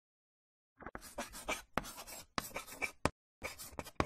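Chalk writing on a blackboard: quick scratchy strokes with a few sharp taps, starting about a second in.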